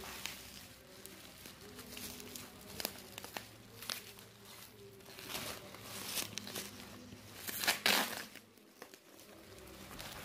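Plastic wrap and paper packaging crinkling and rustling in irregular bursts as they are pulled open by hand, with the loudest crinkle near the end.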